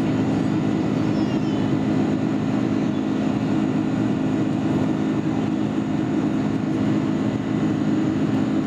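Steady cabin noise inside a Boeing 747-400 in flight: a constant low hum with an even rush of engine and airflow noise heard through the fuselage.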